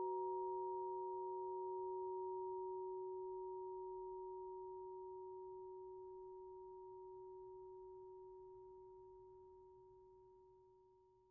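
A sustained chord of several steady, pure tones from percussion with live electronic processing, fading slowly and dying away near the end.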